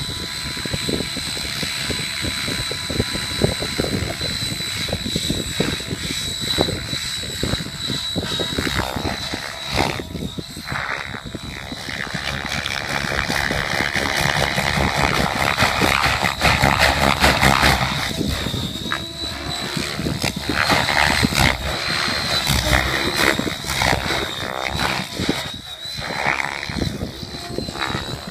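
Align T-Rex 700E DFC electric RC helicopter flying aerobatics: its main rotor blades whooshing and chopping, with a steady high-pitched whine running throughout. The sound swells and fades as it manoeuvres and is loudest in the middle.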